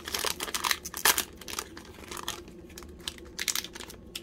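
Wrapper of a 2022 Donruss baseball card pack crinkling in short, irregular crackles as it is handled and torn open by hand.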